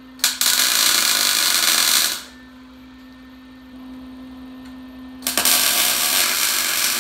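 Wire-feed (MIG) welder laying two short welds onto a steel frame rail: two bursts of steady arc hiss, each just under two seconds, the first starting right away and the second about five seconds in.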